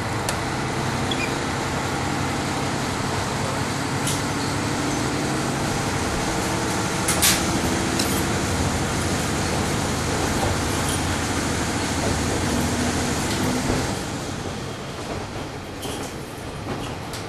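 The Kiha 38 diesel railcar's underfloor DMF13HS six-cylinder diesel engine is working steadily under power, heard from the cabin just above it. A sharp click comes about seven seconds in. Near the end the engine note drops away, leaving the rumble of the train rolling on the rails.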